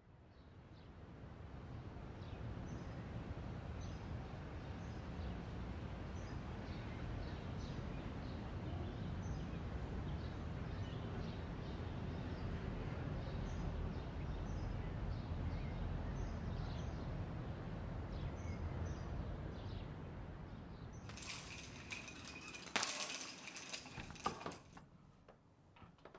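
Steady low rumble of background ambience, fading in, with faint bird chirps over it. About 21 s in the rumble drops away and a few seconds of sharp, bright clinking and rattling follow, the loudest part, stopping near the end.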